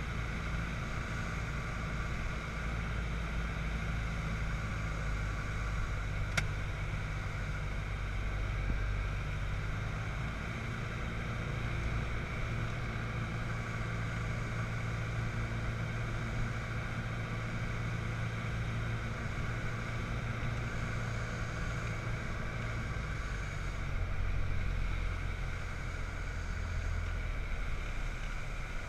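Single-engine light aircraft's piston engine and propeller droning steadily inside the cockpit, mixed with airflow noise, on approach and touchdown. A brief click about six seconds in, and the drone swells slightly a little after two-thirds of the way through.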